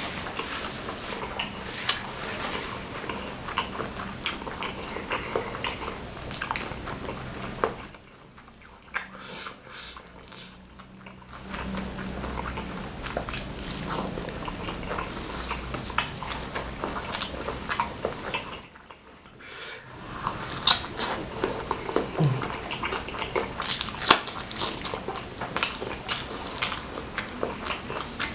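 Close-miked eating in an ASMR mukbang: steady chewing and biting of spicy instant noodles and chili-coated egg martabak, with many small wet clicks and crunches. It dips quieter twice, at about 8 and about 19 seconds in.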